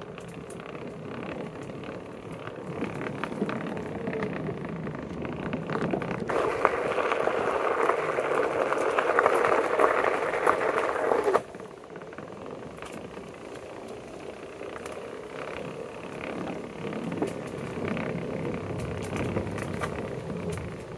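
Onewheel Pint X rolling along a wooden boardwalk and gravel trail: steady tyre and ride noise with many quick clicks and rattles. It grows louder for several seconds in the middle, then drops off suddenly about eleven seconds in.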